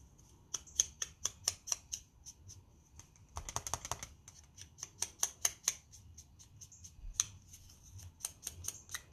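Foam ink dauber dabbing on an ink pad and then around the edges of a die-cut cardstock leaf: several runs of quick taps.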